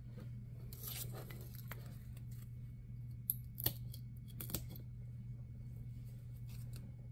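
A steady low hum, with a brief rustle about a second in and a few sharp clicks and taps around the middle, like small objects being handled on a table.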